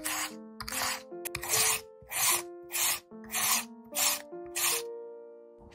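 Raw potato being shredded on a plastic julienne mandoline slicer: about nine rasping strokes as it is pushed back and forth over the blades, stopping near the end. Background music plays underneath.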